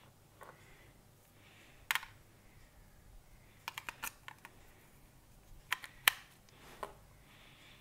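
Small hard plastic clicks and taps as batteries are fitted into a toy drone controller's battery compartment: one click about two seconds in, a quick run of clicks around four seconds, and a few more around six to seven seconds.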